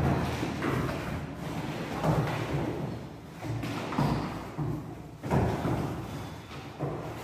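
Thumps and scuffling of a dog and a decoy in a protection suit moving about on a bare floor, with separate heavier knocks about 2, 4 and 5 seconds in, echoing in an empty room.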